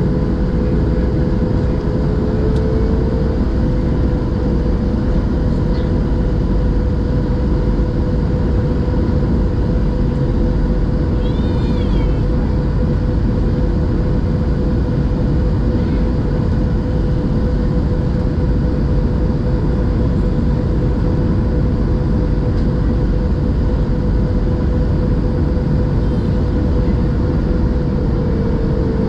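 Steady cabin noise inside a Boeing 737-700 on final approach: the deep rumble of airflow and the CFM56 engines at approach power, with a constant hum tone over it. A faint short warbling chirp sounds about twelve seconds in.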